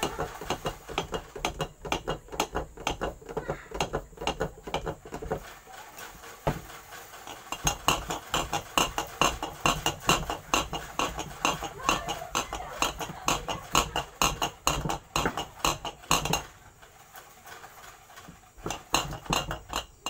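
Hermetic refrigerator compressor shaken hard by hand with petrol inside: rapid metallic rattling and clinking as the compressor is rocked back and forth, flushing out its dirty, blackened oil. The rattling pauses for about two seconds near the end, then starts again briefly.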